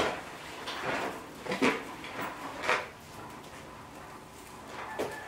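A roll of chicken wire being unrolled along a wooden frame: the wire mesh rattles and scrapes in several short clatters, with a sharp click near the end.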